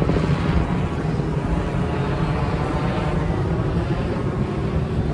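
Helicopter running steadily, a continuous engine drone with a rapid low rotor chop.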